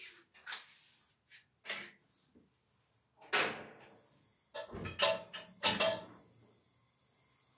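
Kitchen clatter at an old gas stove: a series of knocks and bangs of pans and the stove's metal parts being handled, the loudest a run of heavy bangs a little past the middle.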